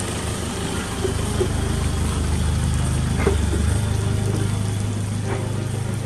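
A steady low rumble of an idling engine, its tone shifting a little past halfway, with a few faint light knocks.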